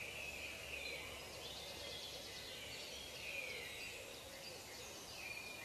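Quiet outdoor ambience with birds calling: short, gliding chirps repeating, with a brief rapid twitter about two seconds in.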